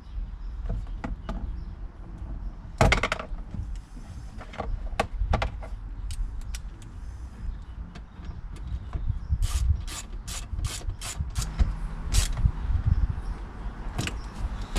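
Clicks and knocks of hand work on a pickup's door panel, with a loud knock about three seconds in. In the second half comes a run of about ten evenly spaced clicks, roughly three a second.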